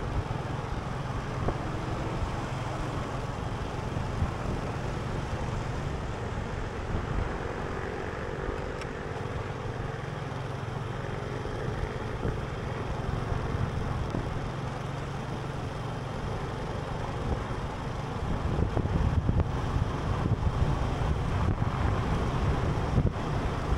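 Steady vehicle and road noise: a low rumble, with a faint engine hum in the middle and the rumble growing louder and gustier over the last few seconds.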